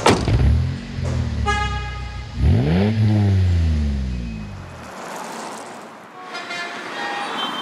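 Road traffic: car engines passing, starting abruptly and loud, with one engine rising and then falling in pitch. A car horn honks about a second and a half in, and fainter horn-like tones sound near the end.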